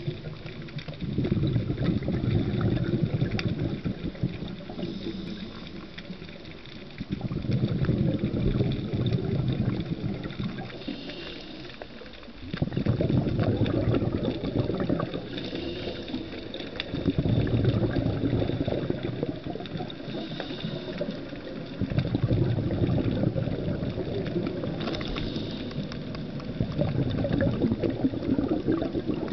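Scuba diver's breathing heard underwater: a regulator's bubbling exhalations in surges of a few seconds each, about every five seconds, with a short high hiss of inhalation between them.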